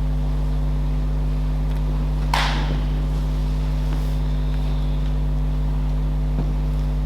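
Steady electrical mains hum from the recording or sound system, a low buzz with several fixed overtones. A single short, soft noise, like a breath, comes about two seconds in.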